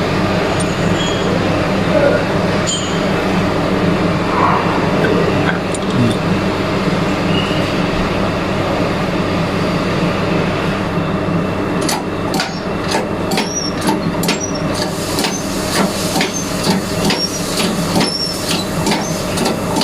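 Steady mechanical drone, like an engine running nearby, with a series of sharp metallic clicks and taps starting about halfway through as the alternator's bearing is being forced off.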